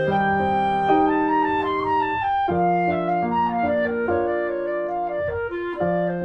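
Instrumental background music: a slow melody of held notes over a soft accompaniment.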